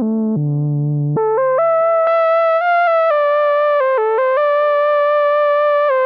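SynthMaster software synthesizer playing the vintage-style brass preset "Shiny Diamond2" from a keyboard. A single melodic line of quick stepped notes leaps upward about a second in, then settles into longer held notes.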